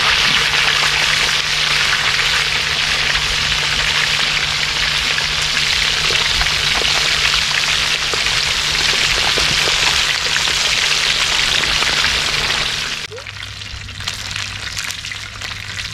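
Fish pieces frying in hot oil in a plow-disc pan, a loud, steady sizzle. About 13 seconds in it drops to a quieter sizzle with a few pops.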